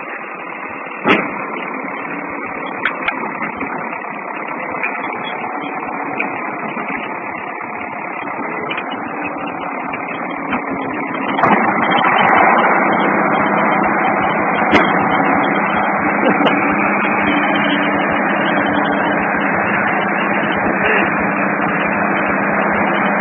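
Tractor engines running in a hissy, muffled recording as a wheeled tractor pushes a crawler tractor to bump-start it. About halfway through the sound grows louder and a steady engine hum sets in, as the crawler's engine appears to catch.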